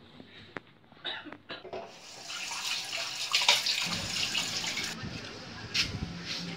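Kitchen tap running into a stainless steel sink as dishes are rinsed, after a few clinks of dishware; the running water cuts off about five seconds in.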